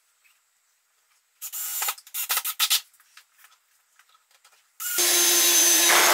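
Cordless drill/driver driving a long screw into the wooden roof piece of a beehive: one loud, steady run starting about five seconds in. Before it, a few short noisy bursts between about one and a half and three seconds in.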